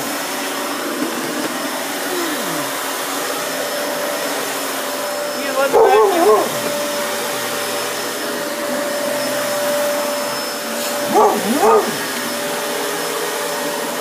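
Dyson upright vacuum cleaner running steadily on carpet. A Basset Hound barks in two short bursts, about six and about eleven seconds in.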